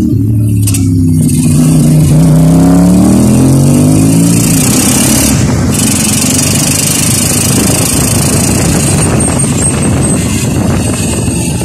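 Kawasaki motorcycle engine of a sidecar tricycle pulling away, its pitch climbing over the first four seconds or so, heard from the sidecar. After that a steady rush of wind and road noise while riding.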